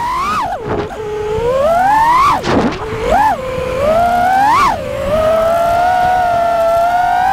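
FPV racing quadcopter's T-Motor F60 Pro brushless motors and propellers whining, heard from the camera on board. The pitch swoops up and down with the throttle, climbing to several sharp peaks and falling back, with a brief rush of air as the throttle is chopped.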